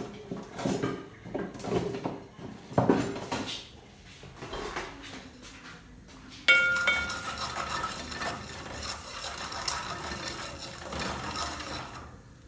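Metal cookware clattering and scraping in a cooking pot on the stove, as if being stirred. About six and a half seconds in, a sharp metallic clang rings on briefly.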